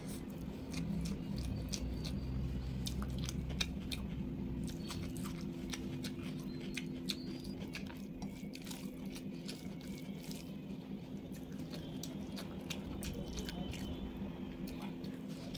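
A person eating rice and egg korma by hand: chewing with many short wet mouth clicks, and fingers mixing the rice on the plate. A steady low hum runs underneath.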